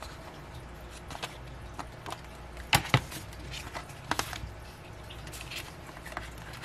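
Handling of album contents such as photocards and paper inserts: scattered light clicks and rustles, the sharpest a pair about three seconds in and another a little after four seconds.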